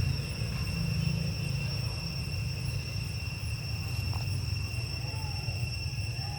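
Steady, unbroken high-pitched drone of insects in the forest, over a low rumble, with two faint short chirps near the end.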